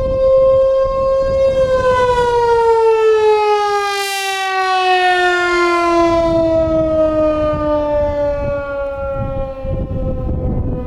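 ASC T-128 outdoor warning siren sounding the attack signal, a rising and falling wail: its tone holds high for about a second and a half, then winds slowly down in pitch over the following seconds.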